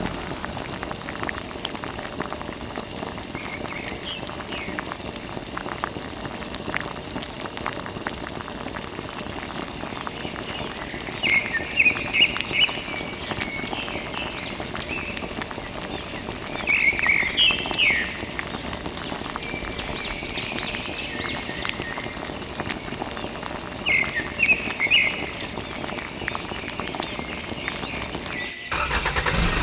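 Water from a thin tube fed by a mini water pump pattering and splashing steadily onto sand and a mud-caked toy truck. A few short high chirps come in clusters several times over it.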